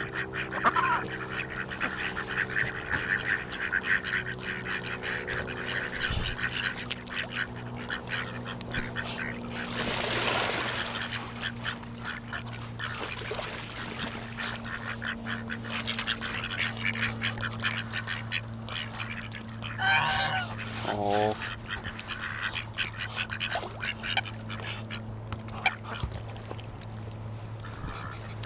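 Ducks quacking and a domestic goose honking, with a run of calls about twenty seconds in, over a steady low hum.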